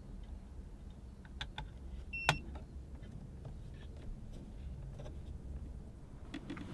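Light plastic clicks and taps of a Garmin GPSMAP 62s being handled in its RAM mount cradle, with one sharp click and a short electronic beep a little over two seconds in as the unit is switched on. A low steady rumble runs underneath.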